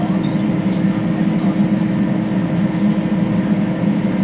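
Boeing Jetfoil's twin gas turbines and waterjet propulsion running, heard inside the passenger cabin as a loud, steady drone with several held tones.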